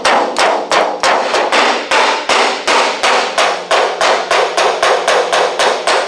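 Curved body hammer beating on the underside of a 1964 Volkswagen Beetle's steel roof panel, about four quick blows a second, each ringing the sheet metal. The hammer is struck and dragged across the metal to stretch it and push a caved-in low spot back out, working without a dolly.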